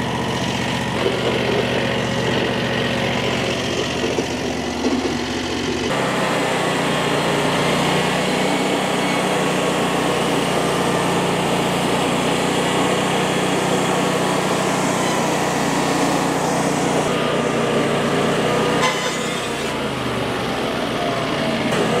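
Frontier OS35 portable bandsaw mill with its engine running and its band blade sawing through a cedar log, a steady engine note under the hiss of the cut. About six seconds in, the engine note changes abruptly.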